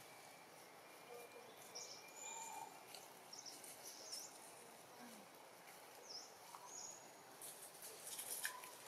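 Quiet forest ambience with a few short, high bird chirps scattered through it; near the end, a brief rustling of dry leaves.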